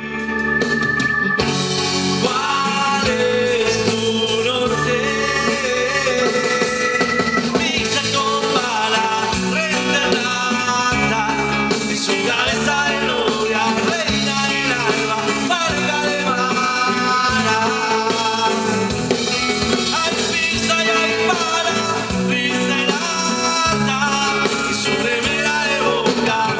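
Live rock band playing, with electric and acoustic guitars, drum kit, keyboard and congas. The music cuts in suddenly at the start and then carries on without a break.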